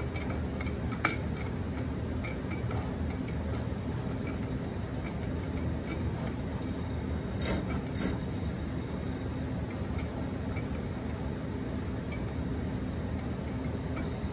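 CNC pen plotter running as its paint pen draws fill strokes: a steady motor hum, with a sharp click about a second in and two more close together around seven and a half to eight seconds in.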